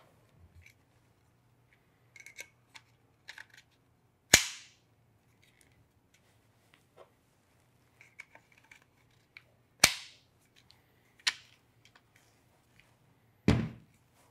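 Peak Design Travel Tripod ultralight feet snapping into the carbon-fibre legs: loud, sharp clicks as each foot's spring button locks in. The two loudest come about five and a half seconds apart, with a smaller one soon after the second. Light handling rattles fall between them, and a duller knock comes near the end.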